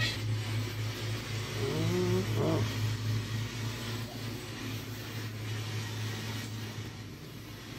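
A steady low machine hum that dies away near the end, with a short rising whine about two seconds in.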